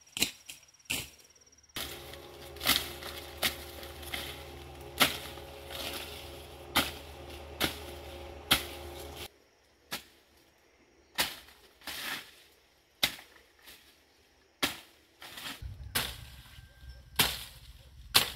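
A blade chopping into stems and wood of cinnamon trees and scrub, sharp single strokes about once a second. A steady motor hum runs underneath from about two seconds in and stops abruptly about halfway through.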